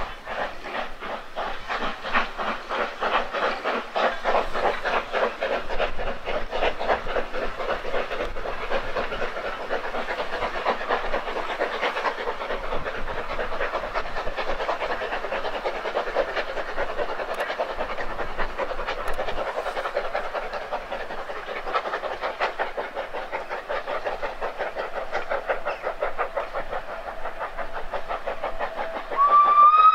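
Beyer-Peacock 2-4-0T steam tank locomotive working a train, its exhaust chuffing in a quick, even rhythm over a steady hiss of steam. A steady whistle note starts just before the end.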